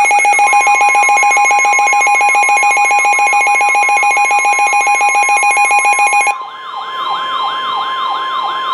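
Layered electronic weather-alert alarms. A steady NOAA Weather Radio warning tone sits under rapid pulsed beeping and a wailing tone that sweeps up and down about three times a second. The pulsed beeping cuts off about six seconds in, and the wail then drops lower and ends near the end.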